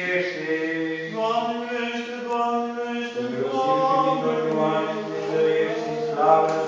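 Romanian Orthodox liturgical chant, sung slowly in long held notes with a low note sustained beneath the melody.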